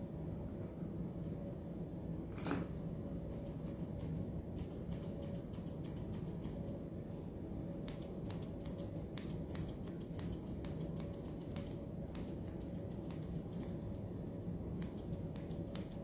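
Pet grooming scissors snipping through a Maltipoo's curly coat: a couple of single snips, then quick runs of short snips from about three seconds in. A steady low hum runs underneath.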